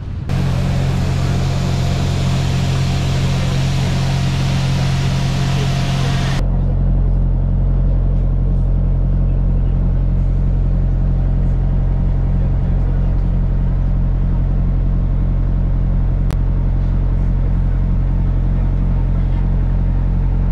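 A loud, steady rushing noise over a low hum for about six seconds, then a sudden cut to the steady deep hum of a bus engine idling, heard from inside the bus.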